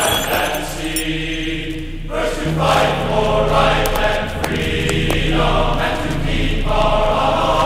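Background choral music: voices holding sustained chords that change every second or two.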